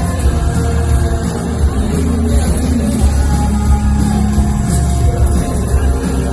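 Live rock band playing, with heavy bass and held chords.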